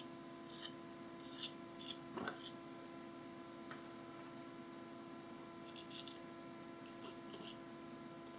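Small metal artist's spatula scraping and smoothing gritty pumice-textured paint around a model tree's base: faint, short scratches in irregular clusters, with gaps of a second or more between them.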